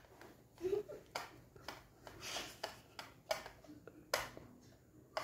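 Hand screwdriver turning a screw in a cardboard toy box: a run of faint, irregular clicks and short scrapes.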